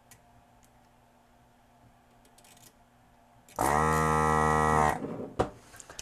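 Electric desoldering gun's vacuum pump switching on with a loud, steady hum for just over a second, then cutting off abruptly, as it sucks melted solder out of a circuit-board joint. A few faint clicks come before it.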